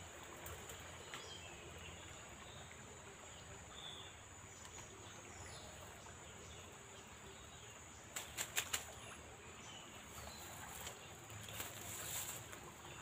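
Quiet riverbank ambience: a steady high hiss, a few faint chirps, and a quick run of four sharp clicks about eight seconds in.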